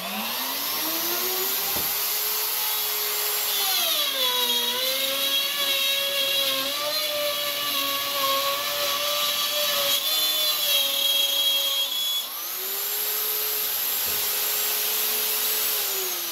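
Plunge router spinning up, then its pitch drops as the bit plunges into 11/32 plywood and cuts a curved arc under load. About twelve seconds in the pitch rises back as the cut stops and the router runs free, and it begins to wind down near the end.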